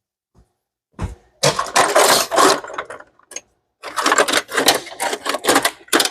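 Ratchet wrench clicking in two quick runs as a ground-wire bolt is undone, with a single knock just before the first run.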